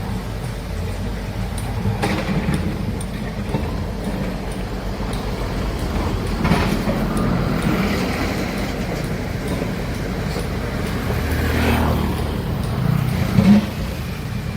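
Heavy construction machinery's diesel engine running steadily, with a few brief louder surges as it works.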